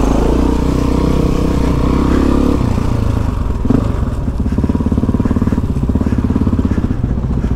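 Suzuki DR-Z400E's single-cylinder four-stroke engine running at low revs as the bike is ridden slowly. The throttle is eased off a little over two and a half seconds in, and there is a single short knock about halfway.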